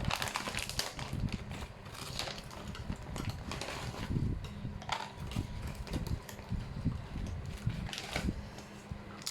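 Close-up eating sounds from a meal of eggplant and tempeh vegetable stew: irregular chewing and small mouth and utensil clicks. A faint low steady hum runs underneath.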